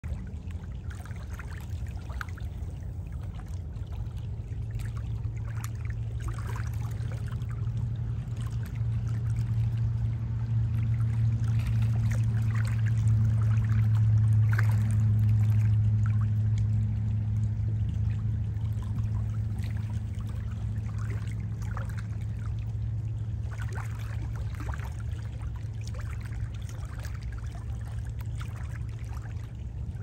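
Low, steady engine drone of a distant motorboat, swelling to its loudest about halfway through and then fading, over small waves lapping and splashing at the shoreline.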